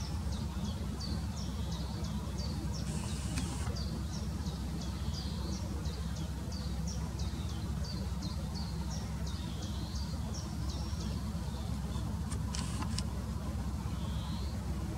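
A bird repeating a high, thin, downward-sliding note about twice a second, stopping about eleven seconds in, over a steady low rumble. Brief rustles come about three seconds in and again near the end.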